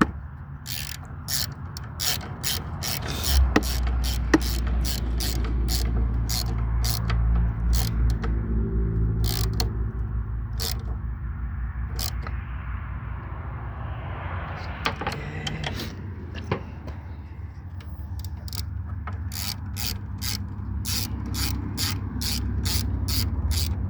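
Hand ratchet clicking in quick runs of evenly spaced strokes as nuts are run down, over a steady low hum.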